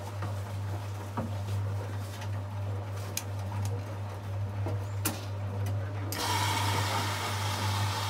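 Hotpoint Liberator 1826 washing machine running mid-wash: a steady low hum with scattered light clicks, then about six seconds in a louder hissing noise sets in suddenly.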